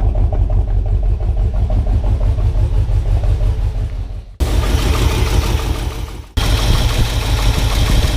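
1978 Ford F-150's 460 big-block V8 running rough with a misfire, its exhaust pulsing unevenly. The sound changes abruptly twice, about four and six seconds in.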